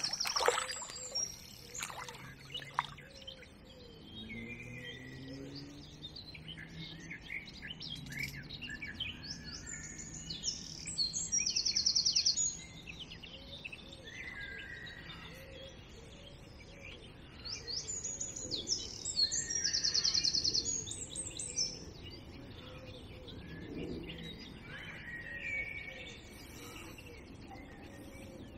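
Songbirds singing: one bird gives two loud phrases about eight seconds apart, each ending in a fast trill, while other birds chirp more softly throughout.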